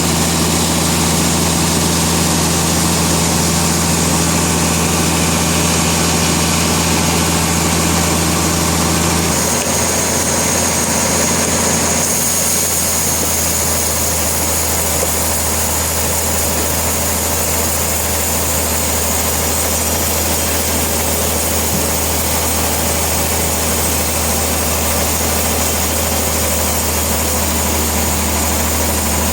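Sawmill machinery running with a steady, loud mechanical drone. The pitch of the drone changes slightly about nine seconds in.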